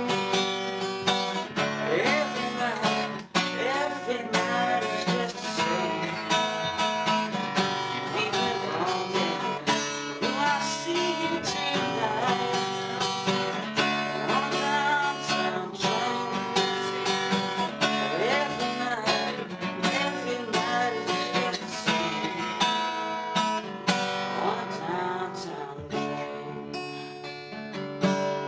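Acoustic guitar being strummed in a steady rhythm, a solo live performance with no backing band.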